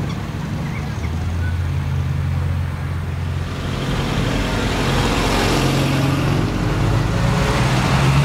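Classic Triumph sports cars, TR6s with their straight-six engines among them, running at low revs as they roll slowly past one after another. About five seconds in, a car passing close brings a swell of engine and tyre noise.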